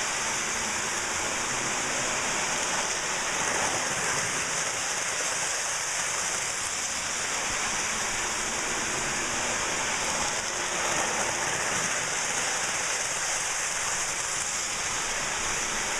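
Lionel O-gauge model diesel train running steadily around its track: an even rolling hiss of metal wheels on the rails with the motor's hum beneath, holding the same level throughout.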